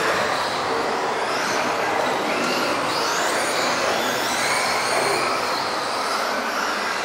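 Several electric RC offroad buggies racing together, their motors whining and gliding up and down in pitch as they accelerate and brake, over a constant rush of tyre and drivetrain noise.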